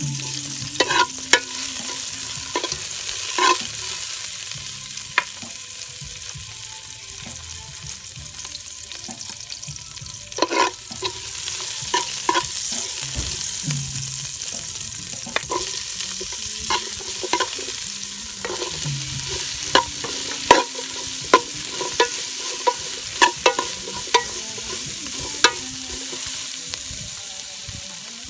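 Food sizzling in a hot pan as it is stirred, with frequent sharp clinks and scrapes of a utensil against the pan.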